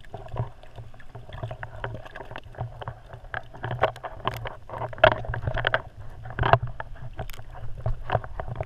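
Muffled water sloshing heard by a camera held underwater, with irregular clicks and knocks as the camera moves, over a steady low hum; the loudest knocks come about five and six and a half seconds in.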